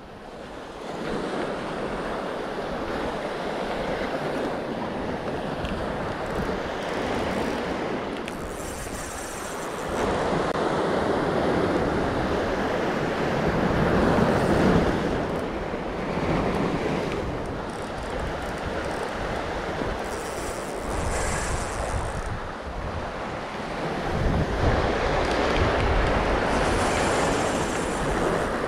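Sea surf breaking and washing over a pebble beach, swelling and falling back every few seconds, with wind rumbling on the microphone at times.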